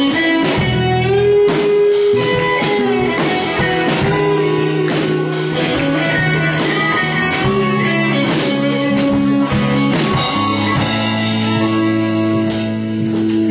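Live country band playing a guitar-led instrumental intro.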